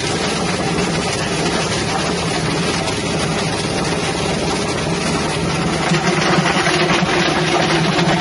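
Spice and herb grinding machine running on its 6.5 hp engine, a steady motor drone with a noisy whir on top, getting a little louder about six seconds in.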